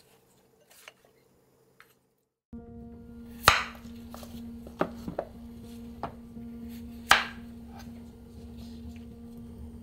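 Kitchen knife cutting through a whole cucumber onto a cutting board: two sharp chops with a few lighter knocks between them. The first couple of seconds are near silent.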